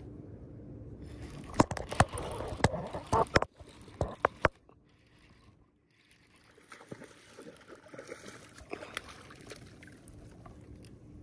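Several sharp clicks and knocks of fishing tackle being handled aboard a kayak, then, after a brief lull, water sloshing and gurgling along the kayak's hull as it moves.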